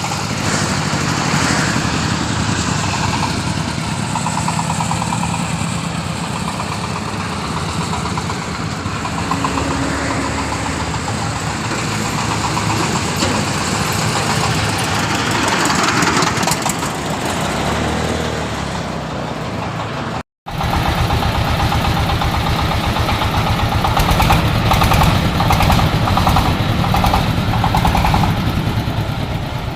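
Engine-driven corn sheller, the type that shells unhusked cobs, running steadily, with a brief break about two-thirds of the way through.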